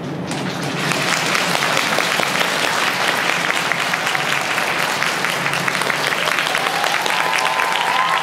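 Audience applauding a figure skater as he takes the ice, swelling about a second in and holding steady.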